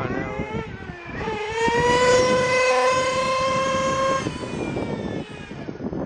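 Nitro RC buggy's small two-stroke glow engine revving hard. About a second in it climbs to a high, steady, slightly rising whine, holds for about three seconds, then drops off just past four seconds in.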